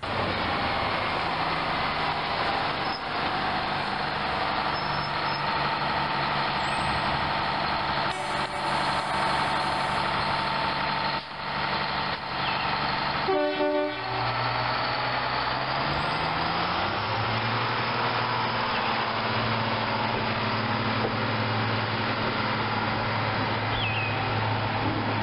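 RedHen diesel railcar's engine running steadily as it moves, its note rising about two-thirds of the way through, as if under more throttle.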